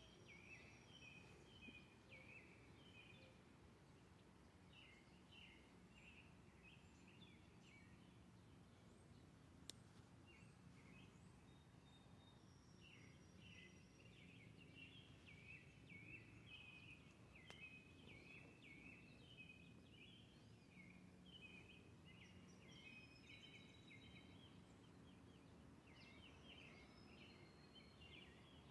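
Faint outdoor ambience: small birds chirping and twittering in quick runs of varied short notes, over a low steady hum of background noise. There is a single sharp click near the middle.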